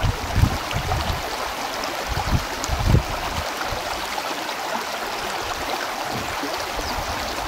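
Steady rushing noise like a flowing stream, with low wind thumps on the microphone during the first three seconds.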